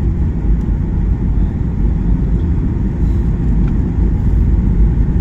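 Airliner cabin noise during the final approach: a steady low rumble of the engines and the air rushing past the fuselage, heard from a window seat.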